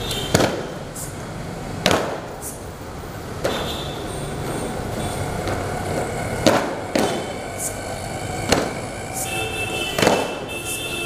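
Marching feet of a squad of cadets stamping on a hard tiled floor, one sharp stamp every second or two at an uneven pace, with murmuring voices in the background.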